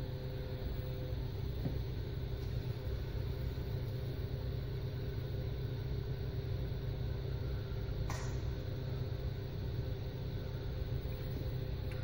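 Steady low hum of a heating system's circulator pumps running, with two faint steady tones above it and one sharp click about eight seconds in.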